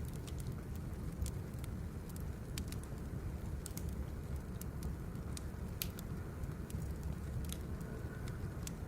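Birch logs burning in a fire, crackling with irregular sharp pops over a steady low rumble.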